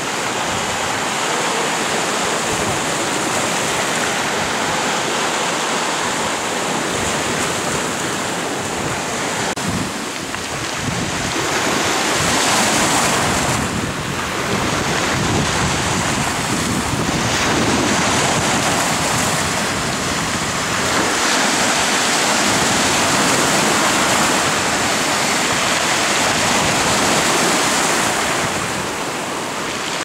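Black Sea surf washing over boulders and pebbles: a continuous rush of water that swells louder every few seconds as waves come in and draw back.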